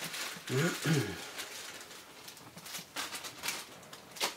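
Clear plastic bag crinkling and rustling as small parts are taken out of it. A brief low voice sound with a gliding pitch comes about half a second in, and there is a sharp click near the end.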